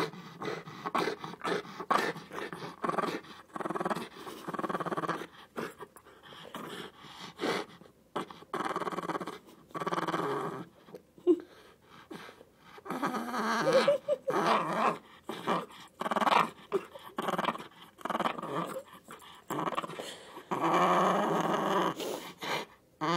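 French bulldog growling and grumbling in uneven bursts with short pauses, a Chewbacca-like warbling growl.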